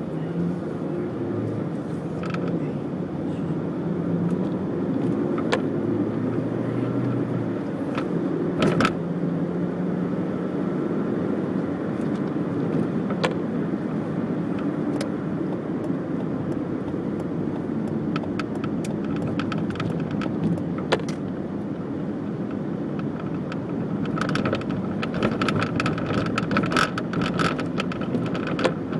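A Corsa B's engine running steadily, with a light plastic-sounding rattle and scattered sharp ticks that turn into a rapid, continuous rattling near the end. The rattle is from the driver's side, around the dash and windscreen or just under the bonnet, and the owner suspects it could be linked to the radiator fan that he replaced.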